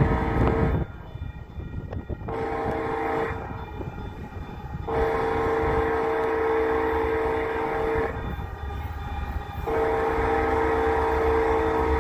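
Union Pacific freight locomotive's air horn sounding at a grade crossing: a short blast, then two long blasts of about three seconds each, over the train's low rumble. A brief loud rush of noise at the very start.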